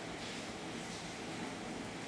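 Spatula stirring a pan of milk and grated bottle gourd, heard as soft scraping and swishing under a steady hiss.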